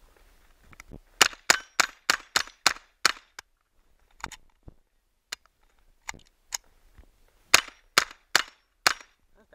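Rapid 9mm gunshots at steel targets: a fast string of about eight shots, then a few single shots, then a quicker string of four near the end.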